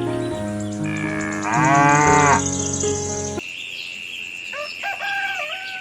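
A cow mooing once, about two seconds in, over music with held notes. The music cuts off suddenly about three and a half seconds in, leaving a steady high tone and a few gliding, chirping calls.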